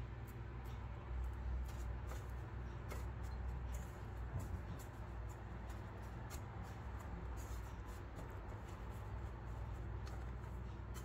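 Soft scratchy rustling and small scattered clicks as hands press a fish patty into breadcrumbs in a steel bowl, over a steady low hum.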